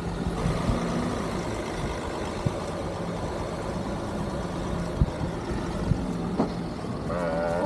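A vehicle engine idling steadily, with a few sharp clicks and knocks over it, and a brief wavering pitched sound near the end.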